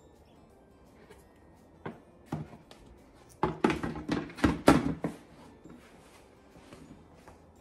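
Plastic lid being fitted and pressed down onto a plastic storage bin: a couple of light taps, then from about three and a half seconds in a quick run of loud plastic clacks and knocks lasting about a second and a half.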